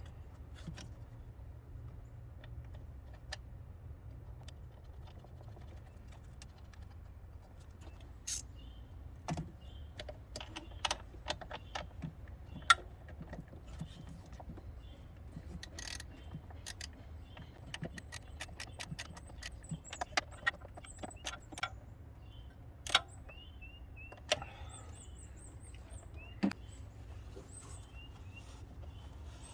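Metal hand tools clinking and clicking irregularly while parts are worked on in the engine bay during a spark plug and coil change, over a steady low hum.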